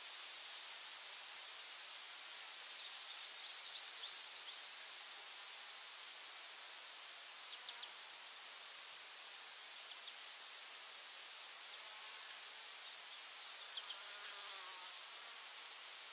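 Chorus of insects: a steady, high-pitched drone with a rapid, evenly pulsed chirping beneath it, and a few faint short chirps here and there.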